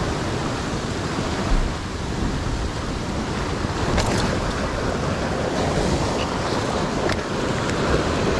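Ocean surf surging and breaking over the rocks below, a steady wash of white water, with wind buffeting the microphone. A couple of faint clicks come about four and seven seconds in.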